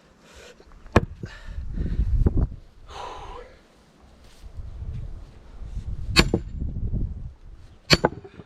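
Sledgehammer striking the steel head of a splitting maul set in a big log round: three sharp strikes, about a second in, about six seconds in and near the end, the last two with a metallic ring.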